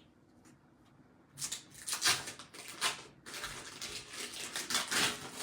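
Kitchen handling noise: crackly rustling and scraping that starts about a second and a half in and goes on in irregular strokes, with a short break about halfway through.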